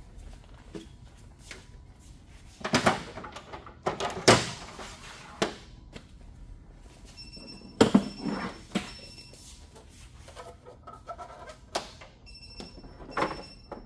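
A handful of plastic thunks and knocks as a scale platform and then a mattress are set down into the bed tray of a GE Panda infant warmer, with a faint intermittent high beeping near the middle and again near the end.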